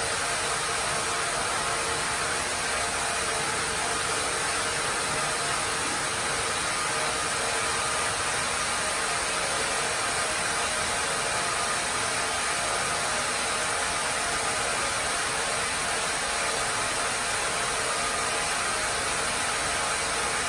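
Carriage sawmill machinery running: the saw blade and its drive motors make a steady, even mechanical noise with no change.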